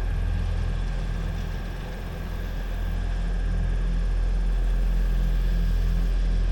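Engine running steadily with a low, even drone, dipping slightly in loudness about two seconds in.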